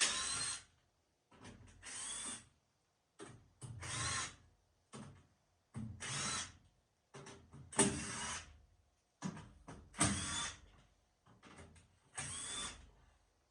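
Cordless power driver backing bolts out of a furnace panel in about seven short bursts, each spinning up with a rising whine, with small clicks of handling in between.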